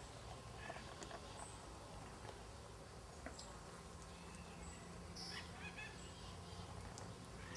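Birds calling faintly: short high chirps every second or two, with a brief cluster of calls a little past the middle, over a low steady hum.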